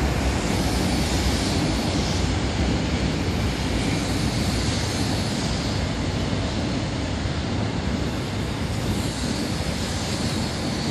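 Seoul Metro Line 2 MELCO chopper-control electric train running past on elevated track: a steady rumble of wheels on rails and running gear, with a hissing upper edge.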